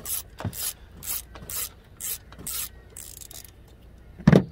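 Ratchet clicking in repeated short strokes, about two a second, as it turns a spark plug socket on an extension to loosen a spark plug in a 2.4 L Tigershark engine. A single loud knock comes near the end.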